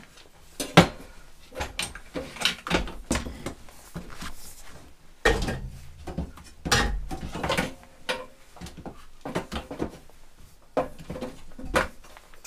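Handling noise as a MIG welder's torch cable and hoses are coiled and hung on a steel welding cart: a string of irregular knocks and clatters with rubbing and rustling between them.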